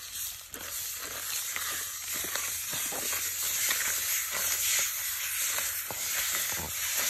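Raw dung beetles being mixed by hand with chili and herbs in a clay mortar: soft, irregular wet crackles and clicks. A steady high hiss runs underneath.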